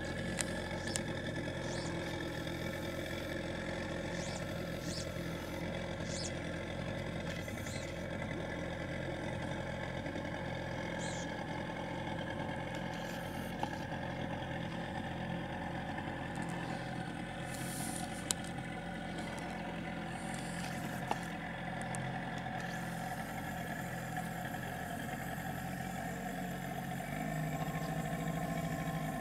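An engine running steadily at an even speed: a constant drone of several steady tones that shifts slightly in pitch near the end.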